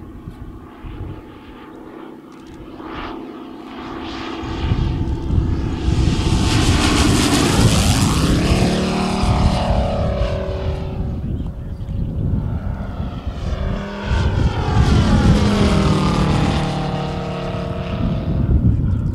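Engine and propeller of a 1/3-scale radio-controlled Mitsubishi A6M Zero model in flight. It is faint at first, then swells loud as the plane flies past and drops in pitch. A second pass follows about fifteen seconds in.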